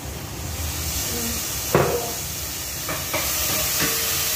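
Hot oil sizzling in a frying pan, swelling about half a second in and then hissing steadily. A sharp knock comes about two seconds in, then two lighter clicks.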